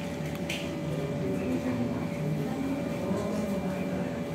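Indistinct voices of several people murmuring in a room over a steady electrical hum, with a brief click about half a second in.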